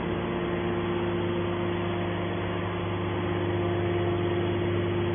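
Hydraulic power pack of a horizontal metal scrap baler running with a steady hum of several even tones, driving the cylinder that swings the baler's top lid open.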